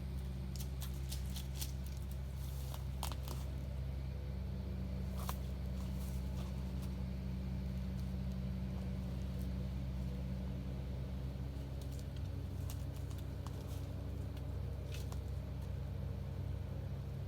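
Steady low drone of highway traffic, with scattered small clicks and crackles over it.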